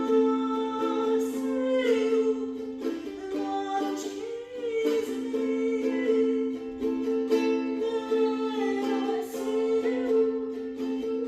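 Music: a voice singing a wordless, gliding melody over a steady held drone, with plucked strings like a ukulele strummed along.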